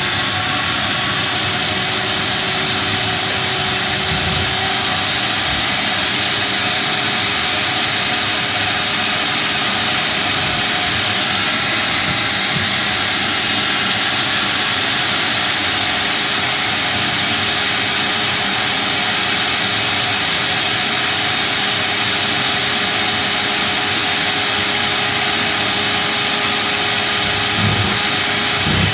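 Machinery running steadily: a constant loud rushing noise with a steady hum tone through it, unchanging throughout.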